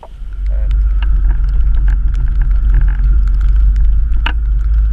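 Vehicle driving a rough dirt track, heard through a camera mounted outside the body: a heavy low rumble of engine, wind and road, with frequent sharp knocks and rattles from the bumpy surface. The sound comes in abruptly as the scene starts.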